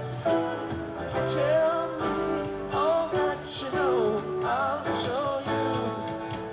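Live rock band playing an instrumental passage, with a lead electric guitar playing bending, gliding notes over the band.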